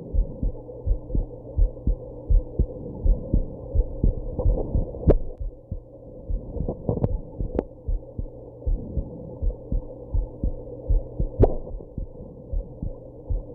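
Human heartbeat after drinking alcohol and smoking, a steady train of low thumps. A few sudden sharp clicks cut in about five, seven and eleven seconds in.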